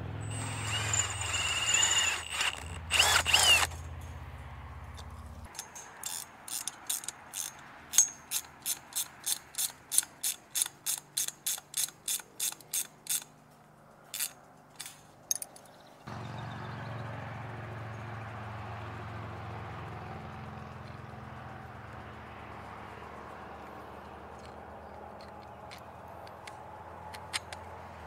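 A cordless drill runs in a few short spurts as it bores into steel EMT conduit. Then a ratcheting wrench clicks in a steady run, about two clicks a second, as a bolt is tightened, followed by a few scattered clicks and then only steady low background noise.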